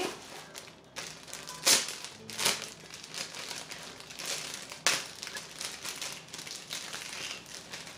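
Clear plastic pouch crinkling as it is handled and opened to take out a necklace, with a few sharper crackles standing out.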